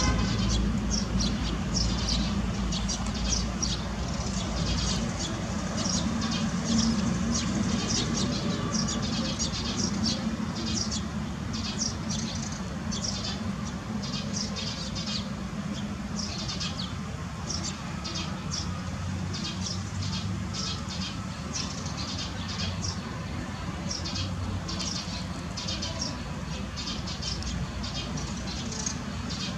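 Birds chirping: many short, high, quick chirps throughout, over a steady low hum.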